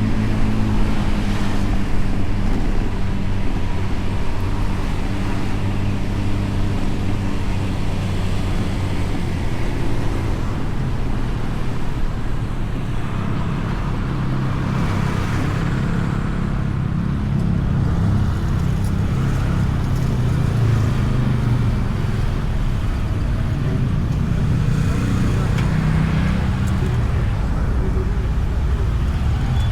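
Honda Beat scooter's small single-cylinder engine running under way, with road and wind noise and traffic around it. The engine's pitch holds steady at first, then shifts up and down through the second half.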